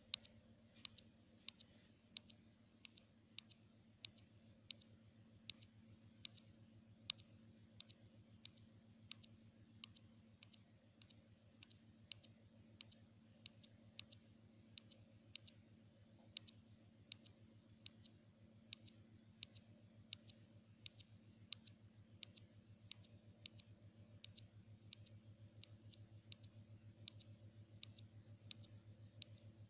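Quick, light clicks, about two to three a second, from a finger tapping repeatedly on a phone's touchscreen, over a faint low hum.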